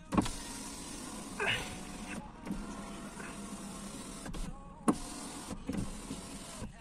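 Skoda Octavia electric window regulator running the door glass up and down in several runs with short stops and a click between them. The run is smooth, with no squeak, after the regulator's rollers were greased with white lithium grease.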